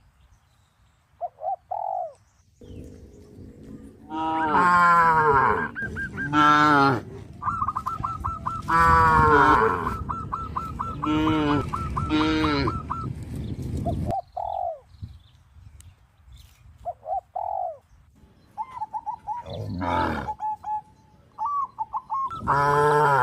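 Farm animals calling one after another. Short high calls come first, then a run of long, loud calls with quick pulsing notes in the middle, and short calls again near the end.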